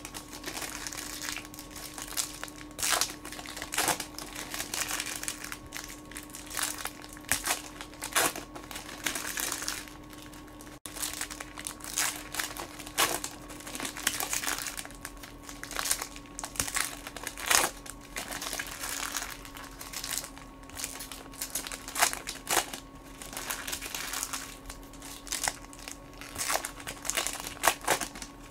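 Trading-card pack wrappers being torn open and crumpled, with the cards inside handled and shuffled: a run of irregular sharp crackles and rustles. A faint steady hum sits underneath.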